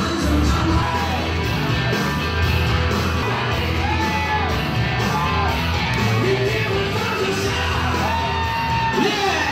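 Loud pop music with a steady beat and a singing voice, with shouts and whoops over it.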